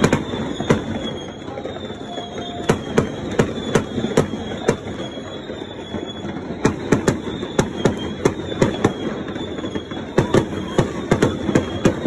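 Fireworks going off in a continuous barrage: sharp bangs, two or three a second at uneven intervals, over a steady din of more distant fireworks.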